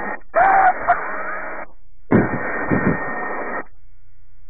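Helicopter headset intercom audio, thin like a radio, switching on and off twice as the voice-activated mics open: a hiss of cabin noise with a brief voice sound near the start, then only a faint low hum.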